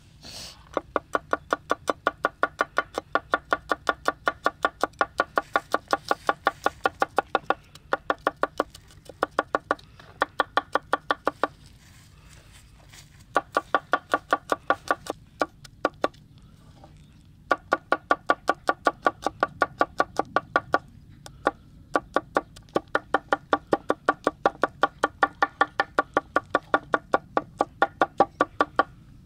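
Rapid chopping: a knife striking a cutting board about six times a second, in runs of several seconds with short pauses between them. Each stroke is a short knock with a definite pitch.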